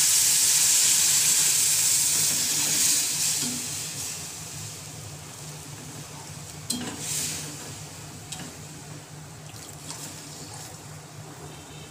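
Cold water poured into a hot pan of fried chicken and vegetables, sizzling loudly at first and fading to a softer hiss over the next few seconds as the pan cools.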